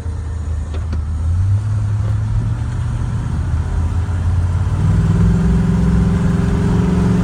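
Heavy pickup truck driving and picking up speed, heard from inside the cab: a steady low engine drone that climbs a step about a second and a half in, then a whine that comes in about five seconds in, rises slightly in pitch and cuts off suddenly near the end.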